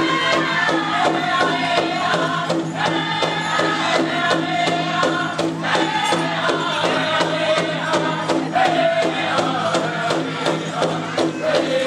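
Powwow drum group singing a fast song for the women's fancy shawl dance: several voices chanting together in high pitch over a steady, quick drumbeat on a large shared drum.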